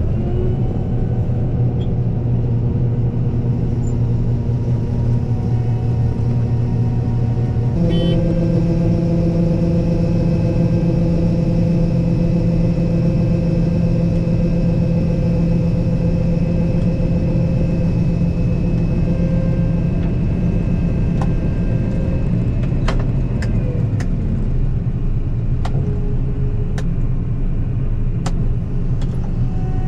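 Combine harvester running in a corn field, a steady engine and machinery drone with several steady humming tones. About eight seconds in, the pitch shifts and a stronger set of steady whining tones joins; it changes again over the last few seconds.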